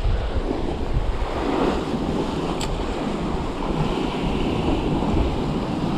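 Sea waves breaking and washing over the rocks in a steady rush of surf, with wind buffeting the microphone.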